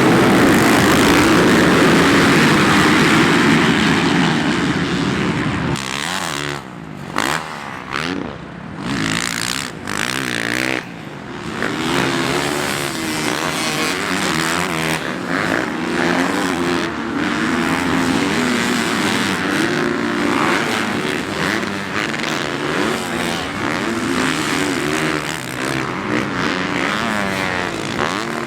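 Motorcycle engines running and revving, their pitch rising and falling, with a few brief drops in level about six to eleven seconds in.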